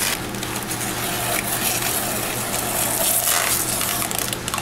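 Blue painter's masking tape being peeled off a freshly PlastiDipped car grille and bumper and bunched up in the hands: continuous crinkling and rustling, with a few louder rips.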